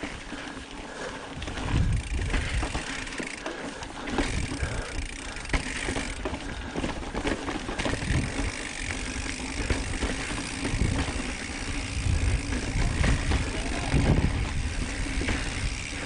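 Mountain bike ridden over rock and dirt singletrack: tyres crunching and the bike's chain and frame rattling and knocking over bumps, under rumbling wind noise on the microphone.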